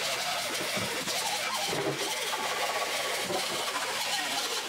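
Handheld grinder grinding down welds on a steel rocker panel, a harsh, continuous grinding of metal with a rough, uneven texture.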